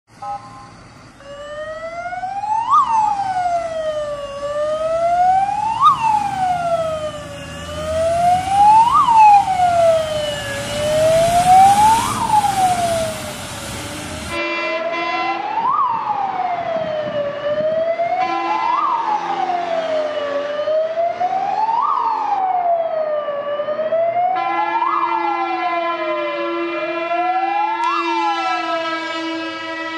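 Scania heavy fire engine's siren wailing, its pitch sweeping up and down about once every three seconds as the truck drives past, with heavy-vehicle rumble beneath it in the first half. In the second half a steady, lower tone sounds briefly a couple of times and then holds under the siren for the last five seconds.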